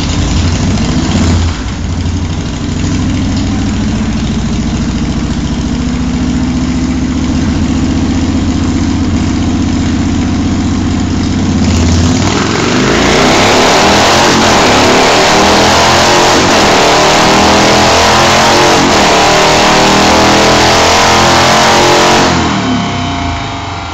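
Car engine on a chassis dyno, running at steady low revs, then about halfway through going into a full-throttle pull with the revs climbing for about ten seconds before backing off near the end.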